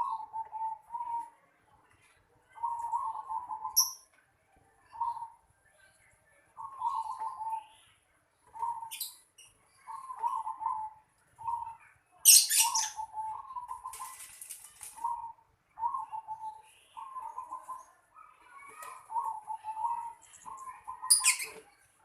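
Zebra dove (perkutut) cooing: short warbling phrases on much the same pitch, repeated every second or two. A few brief rustles come in between, the loudest about twelve seconds in.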